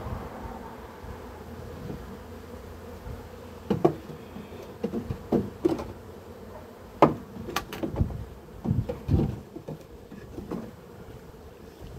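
Honeybees buzzing in large numbers around open hive boxes. From about four seconds in come a series of sharp wooden knocks and clatters as wooden hive frames are handled against the boxes, the loudest about seven seconds in.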